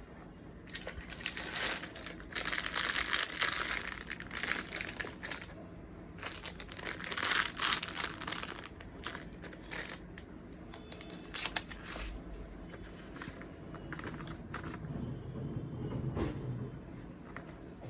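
Packaging crinkling and rustling as it is handled, in two longer bursts with scattered shorter rustles and clicks in between and after.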